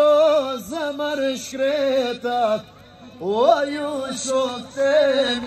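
A man singing an unaccompanied tallava vocal line into a microphone, with long held notes that bend and waver, a short break about three seconds in, then a rising swoop.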